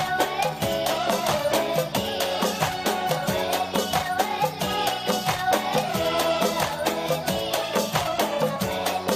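Background music: a melody that wavers up and down over a quick, steady beat.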